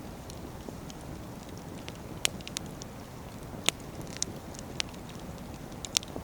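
Wood fire of split firewood burning: a steady low bed of flame noise with frequent small crackles and several sharp pops, the loudest about two, three and a half, and six seconds in.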